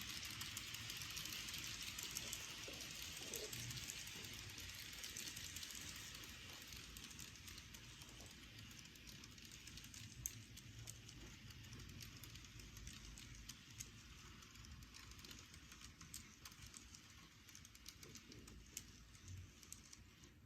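N-gauge model train of a 500 series Shinkansen running on its track: a faint rolling hiss with scattered light ticks from the wheels on the rails, fading after about six seconds.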